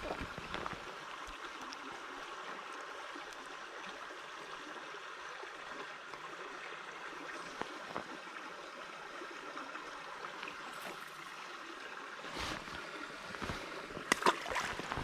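Small river running steadily, with a few sharp knocks near the end.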